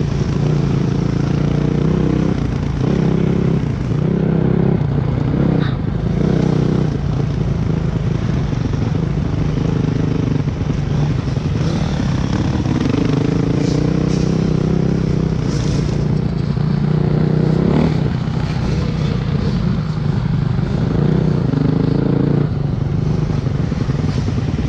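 Motocross bike engine heard from on board the bike, its pitch rising and falling with the throttle and dropping away briefly every few seconds as the throttle is closed for corners and gear changes.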